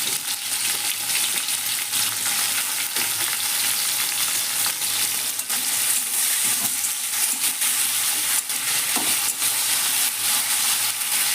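Chopped onions sizzling steadily in hot oil in a kadai as they are fried down to brown beresta, with faint occasional knocks of stirring.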